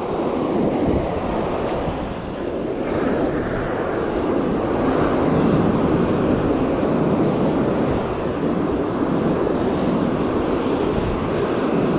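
Ocean surf breaking and washing up the sand close by: a steady rushing noise that swells and eases slightly.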